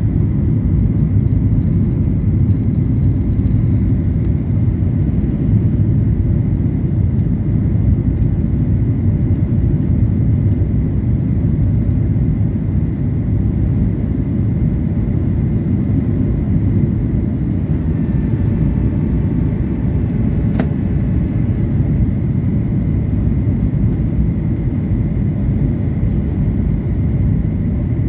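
Steady low rumble of a jet airliner's engines and rushing air heard from inside the passenger cabin during the landing. A single sharp click comes about twenty seconds in.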